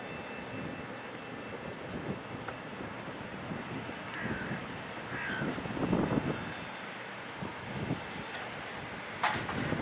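Boeing 737-800's CFM56 jet engines at taxi power as the airliner taxis, a steady rushing hiss with a faint high whine. A crow caws twice, about four and five seconds in.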